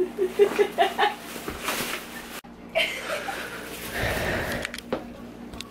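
A person laughing in short, broken bursts, on and off.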